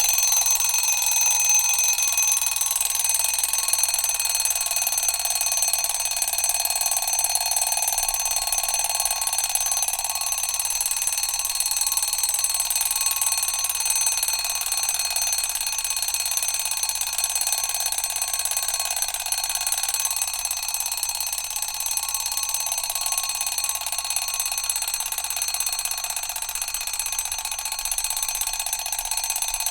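Mechanical alarm clock bell ringing continuously, a loud metallic ring with steady high tones that eases slightly in level near the end.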